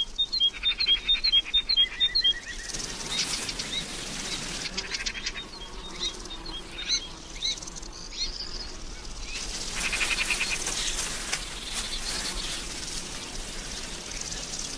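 Woodland ambience: small birds chirping in quick runs of short high notes at the start and again around the middle, over a pulsing insect buzz that grows louder about two-thirds of the way through.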